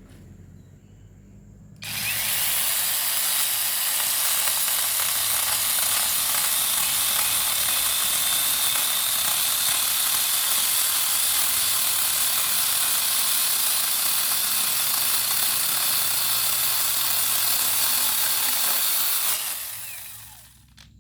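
Angle grinder fitted with a small chainsaw attachment starting about two seconds in and running steadily at full speed, its chain cutting through hard teak root, then spinning down near the end.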